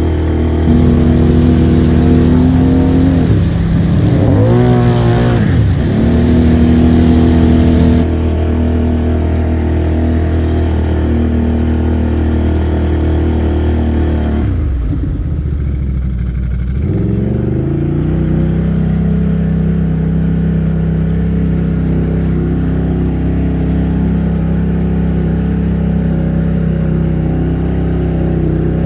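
ATV engine running while the machine wades through deep floodwater, with water splashing and washing around it, loudest in the first several seconds. The engine note dips and picks back up around five seconds in, and again drops and climbs back between about fifteen and eighteen seconds in, then holds steady.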